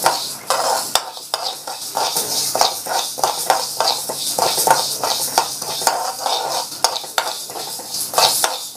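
Metal spoon stirring and scraping mustard and fenugreek seeds as they dry-roast in an aluminium kadai: quick, irregular scrapes with the seeds rattling against the pan.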